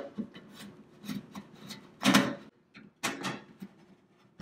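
A screwdriver backing small screws out of an Oster toaster oven's sheet-metal case. The bit scrapes and clicks against the screw heads about once a second, with the loudest scrape about two seconds in.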